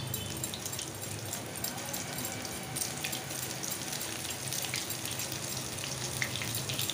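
Raw banana slices frying in hot oil in a kadhai, sizzling steadily with many fine crackles as more slices go into the oil.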